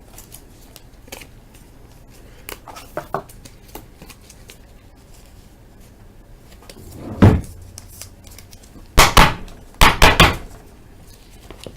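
Baseball cards being handled and flipped through from a freshly opened pack: light clicks and rustles of card stock, then a few louder sharp scrapes and slaps near the end.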